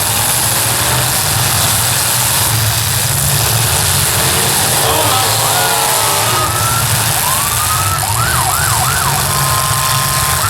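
Demolition derby cars' engines running together in a loud steady rumble under a wash of crowd and arena noise. From about halfway through, a siren-like wail rises and falls several times in quick sweeps, with a couple of held steady tones near the end.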